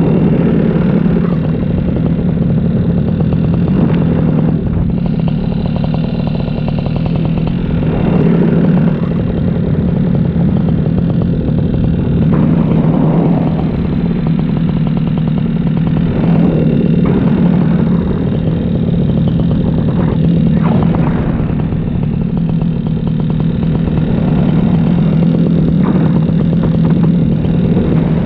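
Paramotor engine and propeller running steadily in flight, a constant engine drone with small swells in level.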